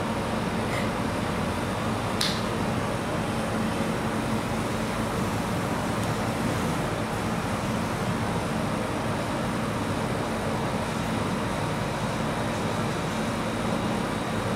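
Steady whir and low hum of a rolled ice cream machine's refrigeration unit and fan, with a light tap about two seconds in.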